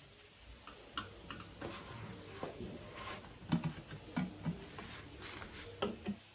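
Irregular light clicks and taps, with a few louder knocks about three and a half to four and a half seconds in.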